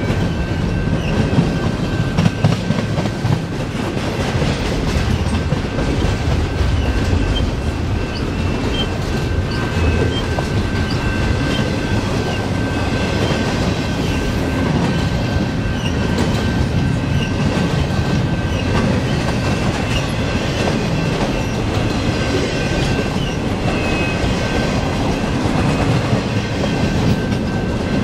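Double-stack container well cars of a long freight train rolling past: a steady rumble and clatter of steel wheels on the rails, with a thin, steady high-pitched squeal running through it.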